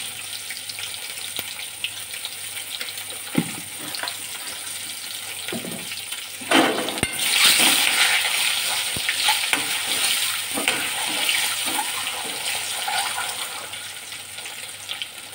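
Boiled eggs sizzling as they fry in hot mustard oil in a kadhai. From about three seconds in, a ladle knocks against the pan a few times. Then comes a louder stretch of sizzling and scraping as the eggs are stirred and turned, which eases off near the end.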